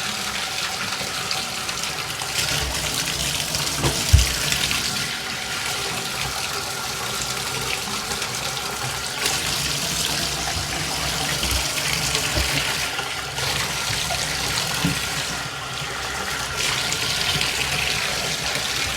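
Water running steadily from a bathtub spout into the tub on a test run of a newly replaced Moen Posi-Temp tub/shower valve. There is a brief knock about four seconds in.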